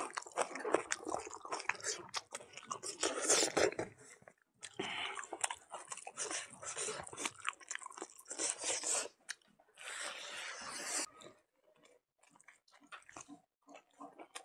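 Close-up chewing of a mouthful of rice mixed with pig blood and fat, eaten by hand, with wet mouth noises, dense and steady for about eleven seconds, then thinning to a few faint clicks.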